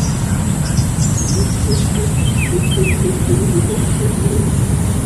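Short high chirps and two quick falling whistles from a small bird, about two and a half and three seconds in, over a steady low rumble.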